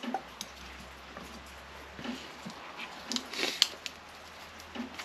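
Small clicks and rattles of a window lock mechanism being handled and fitted into place, with the loudest clatter about three and a half seconds in.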